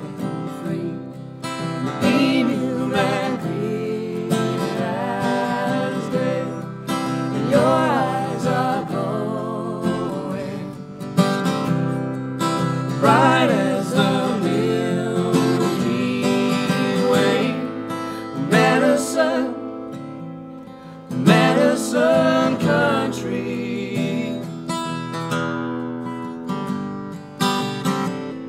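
Live alt-country music: a steel-string acoustic guitar strummed, with a voice singing a wavering melody over it but no clear words.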